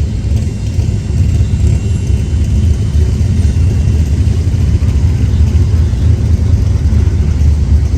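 Norfolk Southern intermodal freight train's cars rolling past at close range, a loud, steady low rumble of wheels on rail.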